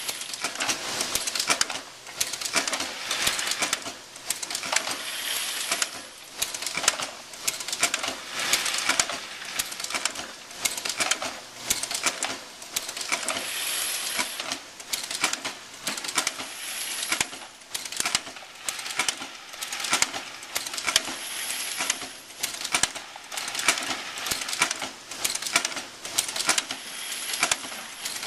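Sheet-metal stamping press running a progressive deep-drawing die for pen and pencil cases: dense, rapid metallic clicking and clinking that swells and eases about every two seconds, with a few brief high hisses.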